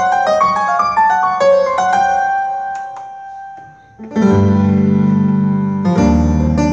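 Roland Lucina AX-09 keytar being played: a quick melody of short decaying notes, about four a second, ending on a note left to fade out. After a brief pause a loud sustained chord with deep bass comes in, struck again about six seconds in.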